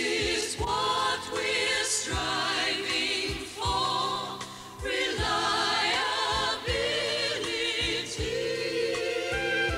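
A song from a stage musical: a group of voices singing with band accompaniment over a steady beat.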